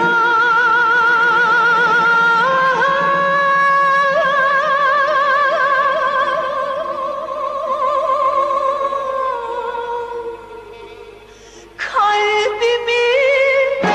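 A woman singing a film song, holding one long note with wide vibrato. She steps up to a higher note about two and a half seconds in, lets it die away about ten to eleven seconds in, and begins a new sung phrase near the end.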